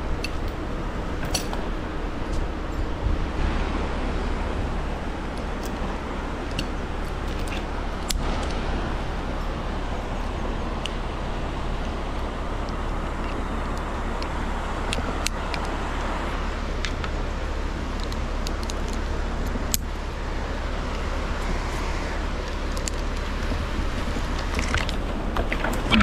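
A crane's steel lifting chain and hook clinking now and then as they are handled, over a steady low background noise.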